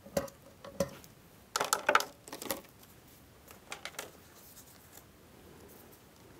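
Patch cables being unplugged from a Moog Subharmonicon's 3.5 mm patch jacks: a scatter of sharp plastic clicks and clatters, busiest about two seconds in, then a few lighter handling taps.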